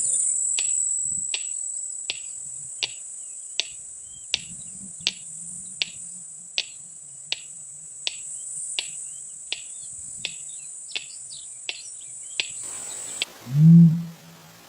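A steady high-pitched insect trill, with a sharp short chirp repeating about every three quarters of a second. Both stop about 13 seconds in, and a deep low hooting call begins near the end.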